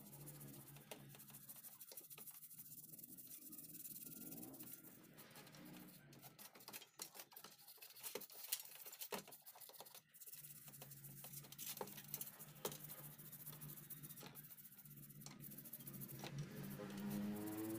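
A toothbrush scrubbing the rusty stator core of a Makita 9553B angle grinder: faint, irregular scratching with small clicks and taps of the part against a metal tray.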